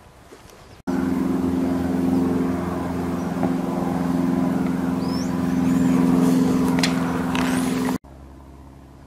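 An engine idling steadily, a constant low hum that starts abruptly about a second in and cuts off abruptly near the end.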